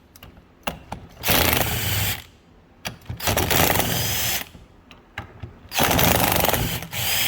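Impact wrench hammering in three runs of about a second each, spinning out the 14 mm hub assembly bolts, with small metallic clicks between the runs.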